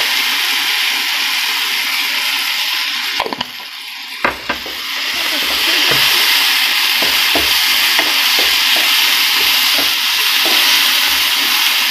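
Onions, capsicum and tomato sauce sizzling in a non-stick frying pan while a spatula stirs them, tapping and scraping the pan with repeated short knocks. The sizzle dips briefly about three seconds in and then picks up again.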